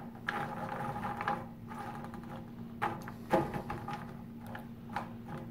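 Pecan halves clicking and scraping against a pan as they are stirred with a silicone basting brush to coat them in melted butter, irregular light knocks over a steady low hum.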